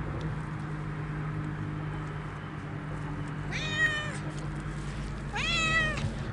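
Siamese cat meowing twice, two short calls about two seconds apart, each rising at the start.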